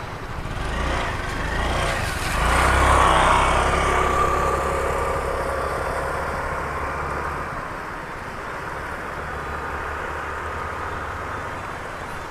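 A motor vehicle's engine and road noise swells about two to three seconds in, then slowly fades; its low engine hum drops away about halfway through.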